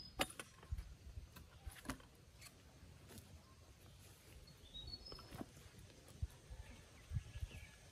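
Scattered light knocks and taps of wooden poles being handled and fitted together into a frame, with a few faint bird chirps twice.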